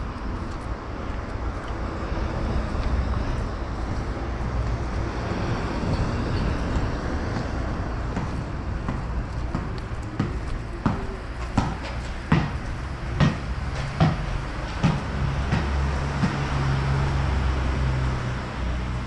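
City street ambience: a steady low rumble of traffic, with a run of about six sharp knocks less than a second apart in the middle and a low engine hum swelling near the end.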